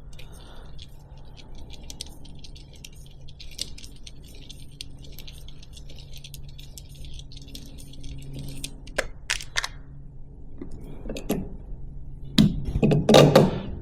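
Weber Workshops Moonraker distribution tool in use on espresso grounds: a faint scratchy stirring for several seconds, then a few sharp clicks and knocks as the metal parts are handled and set down.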